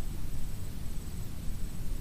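Wind buffeting the microphone: a low, uneven rumble with no clear events.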